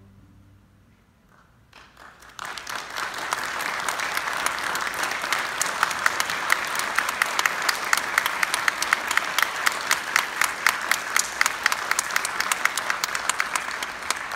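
The last of a string orchestra's final chord fades into a short hush. About two seconds in an audience breaks into applause, which holds steady with sharp individual claps standing out.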